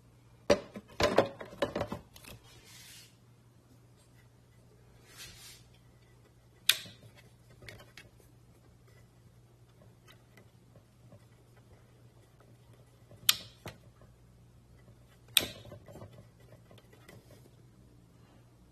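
Scattered sharp clicks and knocks of hard objects being handled: a quick cluster in the first two seconds, then single clicks about seven, thirteen and fifteen seconds in, with two short hisses. A faint steady low hum lies under it all.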